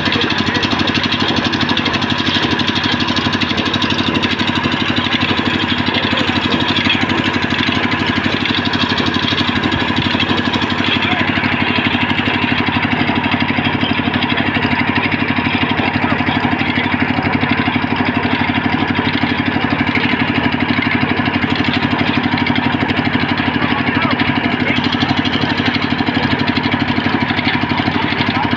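Engine running steadily, driving a large belt-driven band saw as a log is fed through the blade. The hum does not change, with a little less hiss in the upper range from about twelve seconds in.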